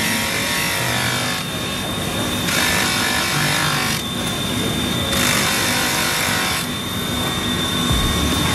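Polishing machine running with a steady high whine, and a rough grinding hiss as a rack of thin metal eyeglass-frame parts is pressed against the spinning wheel. The hiss swells and eases every second or so as the rack is worked against the wheel.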